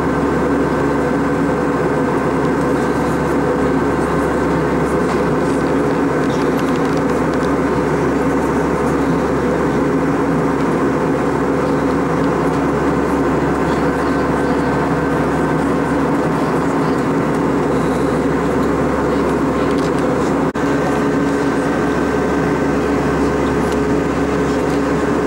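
Steady cabin noise inside an Airbus A320-232 in flight: the rush of air and its IAE V2500 turbofan engines, with several steady hums and a faint higher whine through it. There is one brief dip about twenty seconds in.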